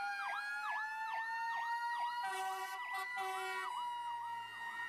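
Fire rescue truck's electronic siren on a fast yelp, sweeping up and down a little under three times a second, over a second steady siren tone that rises slightly.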